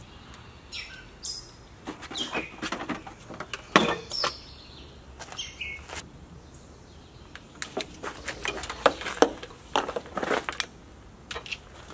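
Irregular clicks, snaps and rustling of a plastic radiator cover being pried off and a wiring harness being pulled and handled, some with brief high squeaks.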